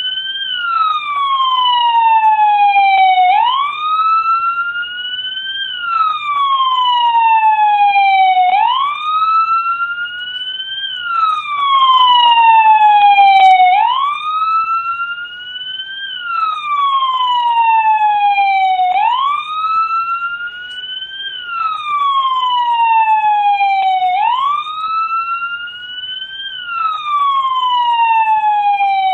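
American police car siren sounding its wail: a loud tone that climbs quickly, then sinks slowly, repeating about every five seconds.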